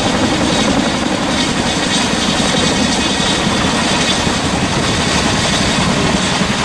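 Boeing CH-47 Chinook helicopter's tandem rotors and twin turbine engines running: a loud, steady noise, heaviest low down.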